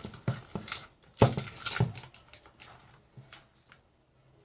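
Clicks, knocks and scraping of a spoon mixing sticky slime in a bowl, with a louder noisy burst about a second in. The sounds thin out in the second half.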